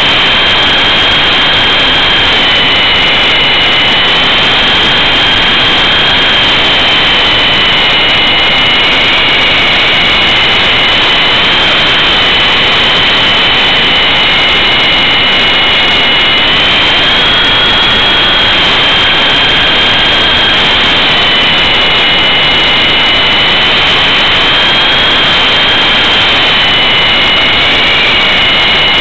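E-sky Big Lama coaxial electric RC helicopter in flight, heard from a camera on board: its motors and rotors make a loud, steady whine that drifts slightly up and down in pitch every few seconds, over a dense rushing noise.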